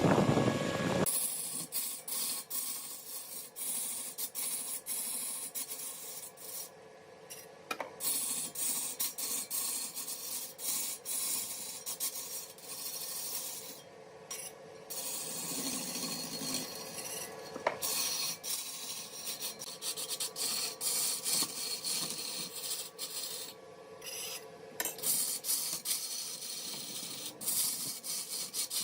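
Rough, irregular scraping and rasping on wood, stroke after stroke, over a faint steady hum.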